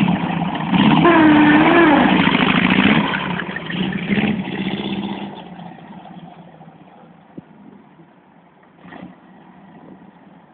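Trike's rear-mounted air-cooled engine revving up and down as the trike pulls away, then fading into the distance after about five seconds to a faint drone.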